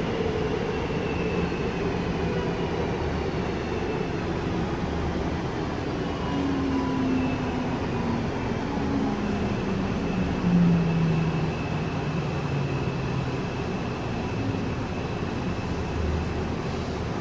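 Busan Transportation Corporation 1000-series subway car running in a tunnel with its Toshiba PMSM traction drive whining, several tones sliding steadily down in pitch as the train brakes for a station, over a constant rumble of wheels on rail.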